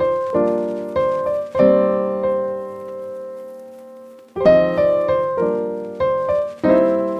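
Background music: piano or electric keyboard chords, struck every half second or so, with one long chord fading away near the middle.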